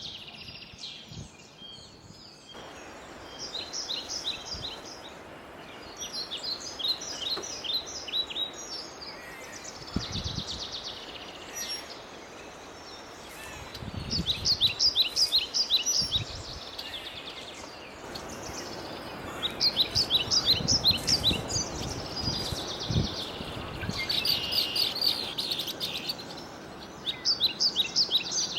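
A songbird singing the same short phrase of rapid high notes over and over, about seven times, a few seconds apart, over a steady outdoor hiss. A few soft low rumbles come in between the phrases.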